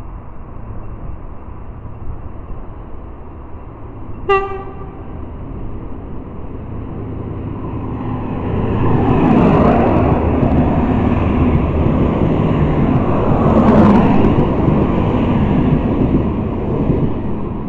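V/Line VLocity diesel multiple unit sounds one short horn blast about four seconds in, then passes close by. Its engines and wheels on the rails build to a loud rumble about halfway through, stay loud for several seconds, and fade near the end.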